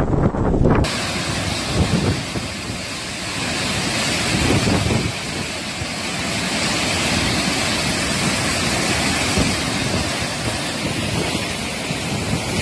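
Wind buffeting an outdoor phone microphone over a steady loud hiss. About a second in, the sound changes abruptly from mostly low rumble to mostly hiss.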